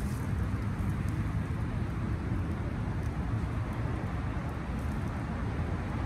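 Steady low outdoor rumble of background noise, with a few faint light ticks.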